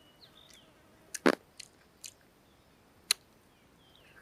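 Mouth sounds of a person eating a roasted egg: a handful of sharp clicks and smacks, the loudest a double click about a second in, with wet chewing between them.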